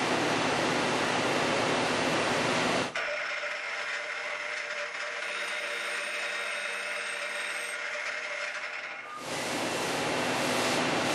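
CNC lathe thread-milling a 1-1/8-24 external thread on a brass hub with a 14-flute shell mill at 4000 rpm: a loud, even rushing noise that cuts off suddenly about three seconds in to a quieter steady whine with several tones, then the rushing noise returns about nine seconds in.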